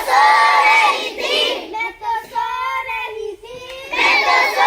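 A group of children singing a Hindi action rhyme together, with loud phrases at the start and again near the end and quieter singing between.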